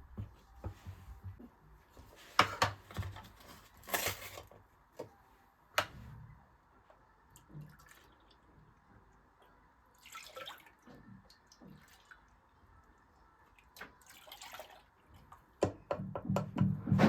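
Kitchen handling sounds: scattered light clicks, knocks and clatters of utensils and dishes, with a few louder knocks. Near the end a fast, even run of taps sets in.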